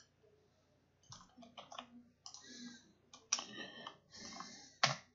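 Computer mouse clicks and keyboard keystrokes, scattered and irregular, as text is copied and pasted between programs; one sharper click comes near the end.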